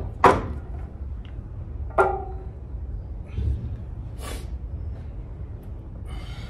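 Metal clanks of weight plates on a plate-loaded leg press machine: a sharp one just after the start, then a second one about two seconds in that rings briefly. A softer thump and a short hiss follow, over a steady low rumble.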